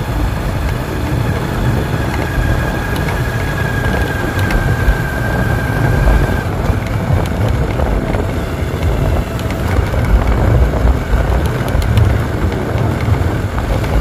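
Vehicle travelling along a road: engine running under a heavy, uneven low rumble, with a thin steady whine for a few seconds near the start.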